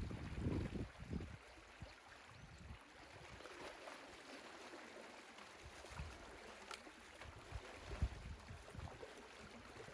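Water rushing steadily through a breach in a beaver dam as the pond drains. Wind buffets the microphone in low gusts for the first second or so and now and then after.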